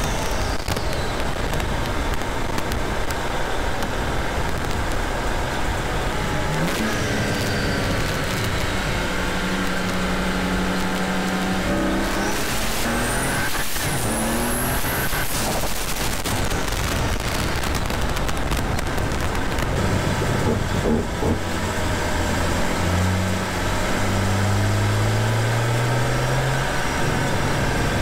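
Turbocharged N55 straight-six of a BMW 435i with an open carbon-fibre intake, running hard in several pulls, its pitch climbing and then holding. A brief high rising whistle comes about thirteen seconds in.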